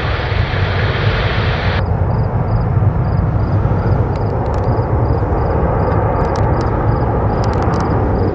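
Steady, loud low rumble of jet airliner engines on approach near the runway. A band of radio hiss from the scanner cuts off about two seconds in.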